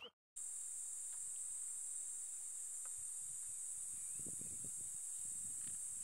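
Steady, high-pitched insect chorus, an unbroken trilling drone, with a few faint low rumbles about four to five seconds in.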